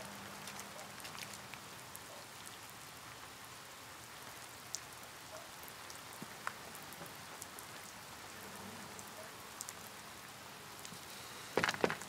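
A faint, steady hiss with scattered light ticks, then near the end a few knocks of a fist on a wooden door.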